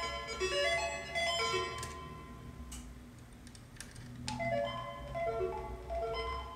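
DIY Eurorack modular synth, an oscillator through a VCA, playing a quick run of short bleeping notes at stepping pitches. The notes fade out about two seconds in, several sharp clicks of patch cables being plugged come through, and the note pattern starts again about four seconds in.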